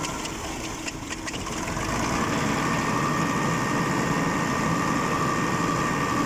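Isuzu 6BG1 six-cylinder diesel in a forklift finishing its cranking and catching, then running steadily from about two seconds in. The hard start is put down to air in the fuel system.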